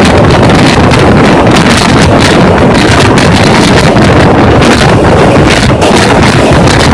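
Strong wind buffeting the microphone over a loud, steady rush and rumble from a train running at high speed.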